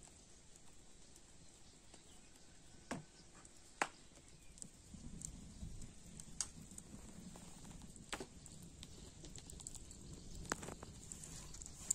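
Faint wood fire crackling: a few sharp pops a second or two apart over a low, steady rush of flame.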